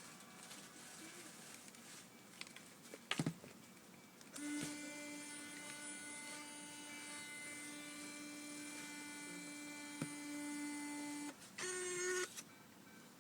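Fujifilm Instax mini camera's lens motor whirring steadily for about seven seconds after a loud click, then a shorter, higher whir near the end. This is the weird sound of a stuck lens at power-on: the motor runs but the lens does not move.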